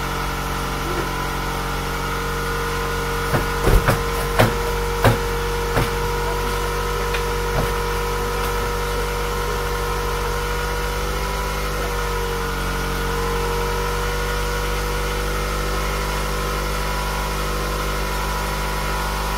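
A car engine idling steadily. A handful of sharp knocks stand out between about three and six seconds in.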